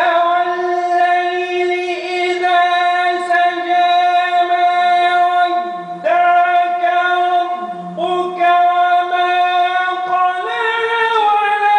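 A man reciting the Quran in the drawn-out melodic mujawwad style through a microphone, holding long notes on a steady pitch. There are short breaks for breath about six and eight seconds in, and the pitch steps up near the end.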